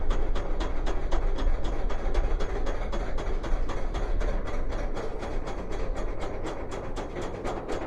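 Roller coaster train running on its track: a rapid, even clicking, about five or six clicks a second, over a steady low rumble.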